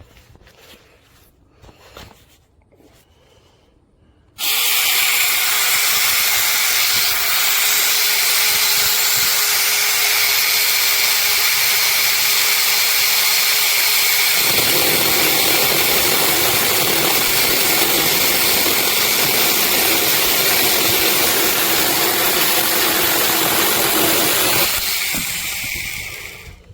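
Cordless electric mini chainsaw starting abruptly a few seconds in and running steadily and loudly. About halfway through, the sound turns lower and rougher, and it runs down and stops near the end.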